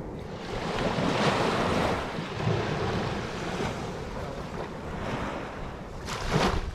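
Ocean waves breaking and washing in. One surge swells about a second in, and another near the end.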